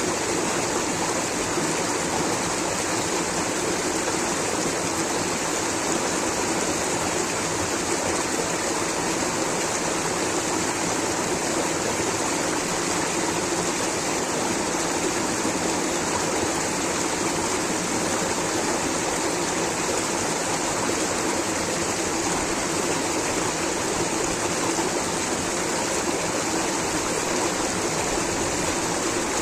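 Rushing water of a stream or small waterfall, a steady even hiss with no change.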